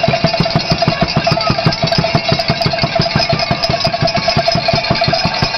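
Fast, even drumming or stomping noise, about eight beats a second, under a steady held high tone, from the stands while a free throw is taken.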